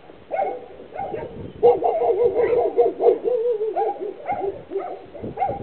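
A dog whining and yipping: a string of short, high whimpers with one longer wavering whine about a second and a half in.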